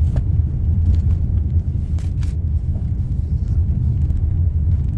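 Steady low rumble of a Chevy Equinox driving over a rough, off-road-like track, heard inside the cabin, with a few short knocks near the start and about two seconds in.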